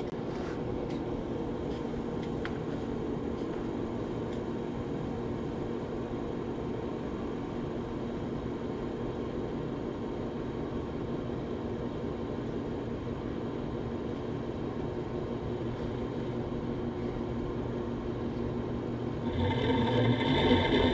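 Gear test rig running with a steady mechanical whir. About nineteen seconds in, it gets louder and a higher-pitched whine joins as the unlubricated 3D printed ASA helical gears begin to turn and mesh.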